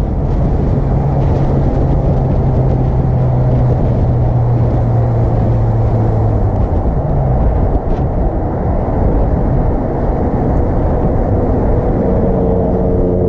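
Car engine fitted with an Acuity cold air intake, driving: a steady low engine drone over road noise, which falls away about seven seconds in, with a higher steady engine note coming in near the end.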